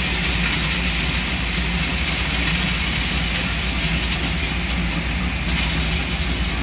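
An engine running steadily: a low hum under a constant rushing noise.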